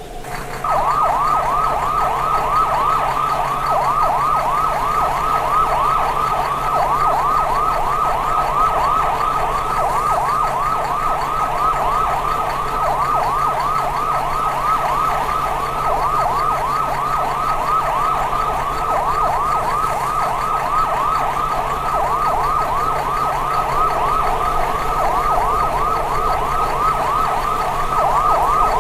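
Japanese railroad crossing warning bell (fumikiri) ringing its rapid, evenly repeating electronic "kan-kan" alarm. It starts about half a second in and keeps going without a break.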